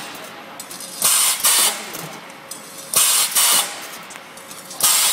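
Pneumatic wire-bending machine cycling as it forms wire rings: each cycle gives a pair of short, sharp air hisses about half a second apart, repeating about every two seconds over a low running noise from the machine.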